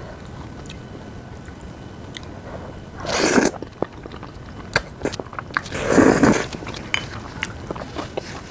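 Close-up eating sounds: chewing with small wet clicks, and two louder half-second bursts of eating noise about three and six seconds in.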